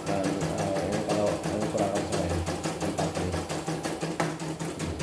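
CNY computerized embroidery machine stitching a test design after repair of its thread-break sensor: the needle mechanism runs with a fast, even clatter of stitches, without a break.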